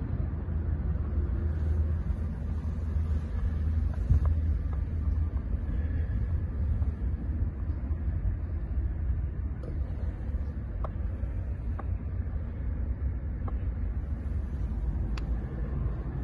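A car running with a steady low rumble.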